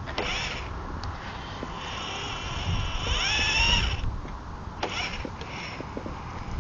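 Battery-powered RC rock crawler's electric motor and gears whining as it drives, the pitch rising and falling with the throttle and loudest with a rising sweep around three seconds in. Scattered sharp clicks under it are thin ice cracking as the truck pushes through.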